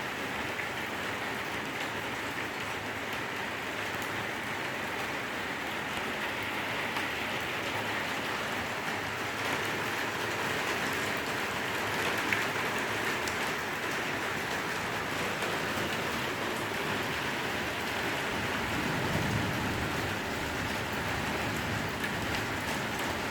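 Steady heavy rain falling during a thunderstorm, an even hiss of drops on surfaces, with one brief sharp crack about halfway through.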